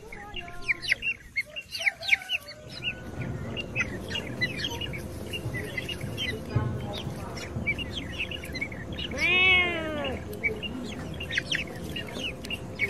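Birds chirping in many short, quick notes, with a chicken clucking low. About nine seconds in comes one louder drawn-out call that rises and then falls in pitch.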